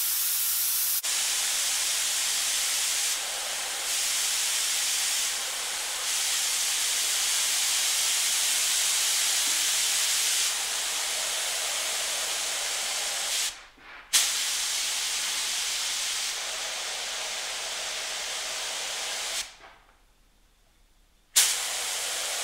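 DeVilbiss DV1 Smart Repair spray gun spraying water on compressed air: a steady, loud hiss of air and atomised water. The trigger is let go briefly about two-thirds of the way through and again for about two seconds near the end, and the hiss starts again sharply each time.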